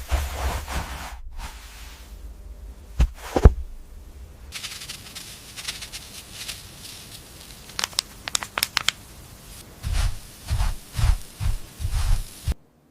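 Close-up crinkling and rustling handling sounds with scattered sharp clicks, a quick run of clicks in the middle and a series of low thuds near the end.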